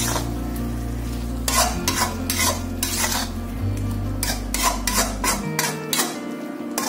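A spatula scraping and stirring thick chicken curry masala around a metal kadai in irregular strokes, roughly one to two a second, with the masala sizzling as the chicken is slow-fried (koshano). A steady low hum runs underneath.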